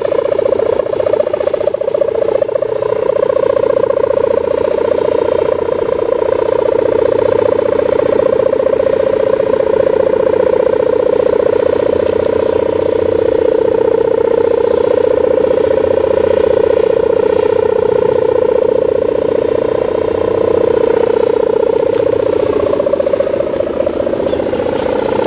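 Kite hummer (sendaren) with a plastic-film ribbon, mounted on a 3-metre kite, droning in the wind: a loud, continuous buzzing 'gerr' on one steady pitch, swelling and easing slightly.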